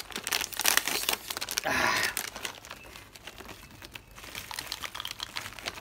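Plastic packet of roasted peanuts crinkling as it is handled and torn open, with a longer ripping sound about two seconds in, then quieter rustling.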